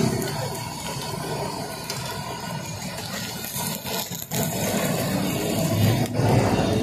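Steady street noise of running vehicle engines mixed with the hiss of eggs frying on a large flat iron griddle. A short knock sounds near the end.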